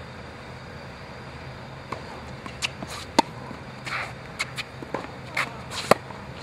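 Tennis rally on a hard court: sharp pops of racket strings hitting the ball, the loudest about three and six seconds in, with softer ball bounces and shoe scuffs between, over a low steady hum.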